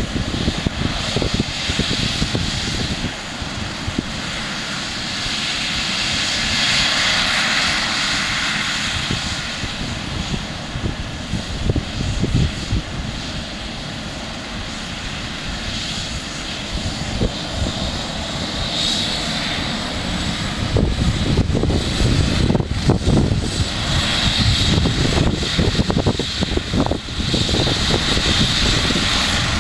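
Eurocopter EC135 air ambulance helicopter idling on the ground before take-off: steady turbine whine with main-rotor and fenestron tail-rotor noise, with gusts of wind on the microphone. It grows louder about two-thirds of the way through.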